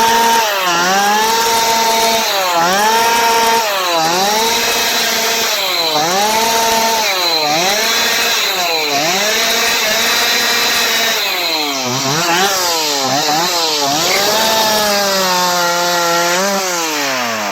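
Stihl two-stroke chainsaw cutting through wood at full throttle, its engine pitch repeatedly dipping as the chain bogs down in the cut and climbing back as it frees. Near the end the throttle is released and the engine falls back toward idle.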